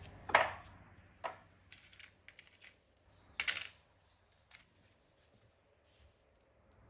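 Scattered light metallic clicks and clinks as the small steel parts of a rocker-arm trunnion bearing kit are handled and set at a bench vise. The two clearest clinks fall at the start and about halfway through, with fainter ticks between.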